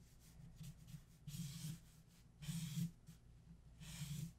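Felt-tip marker strokes rasping across paper: three strokes of about half a second each, roughly a second apart, shading in a curved shape.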